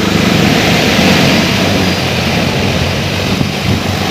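Agricultural multirotor drone's propellers running loudly in flight, a rough whirring hum with a wide rushing noise.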